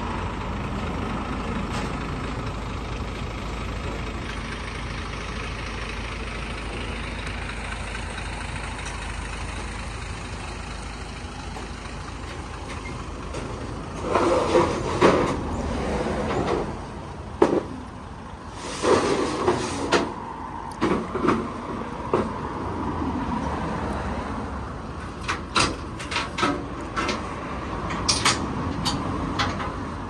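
A truck engine idling steadily. About halfway through, irregular clanks and knocks start over it.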